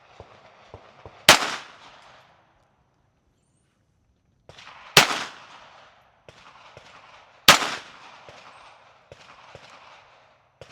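Three Glock pistol shots, a few seconds apart, each followed by a brief echo.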